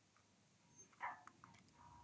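A short, sudden animal call about a second in, followed by a few faint clicks.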